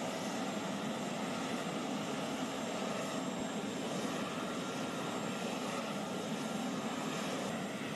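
Aircraft engine noise running steadily on the apron, an even rushing sound with a faint high whine that holds constant.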